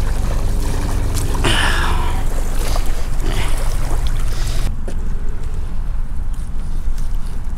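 Steady low rumble of wind buffeting the microphone outdoors, with a short hiss about one and a half seconds in.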